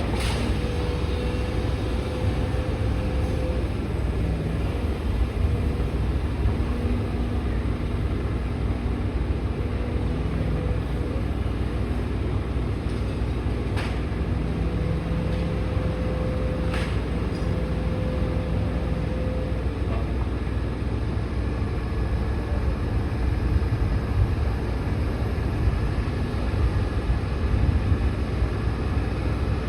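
Demolition excavator running steadily, with a low rumble and a steady hum. Sharp cracks of breaking material come at the start, about halfway through and again a few seconds later.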